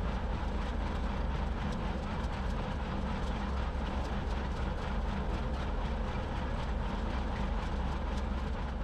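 John Deere 2038R compact tractor's diesel engine running steadily while pulling an IH 440 square baler that is baling hay.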